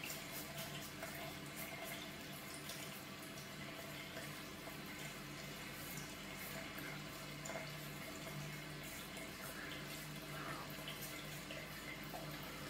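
Faint scratching of a Gillette Mach 3 three-blade cartridge razor drawn across stubble on the neck in short strokes, over a low steady hum.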